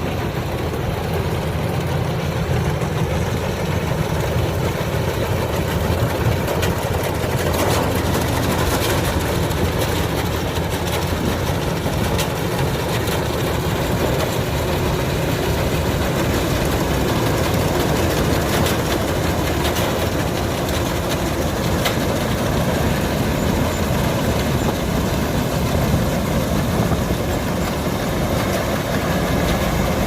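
Kubota DC-105X combine harvester running steadily: a diesel engine drone with machinery clatter and scattered rattles.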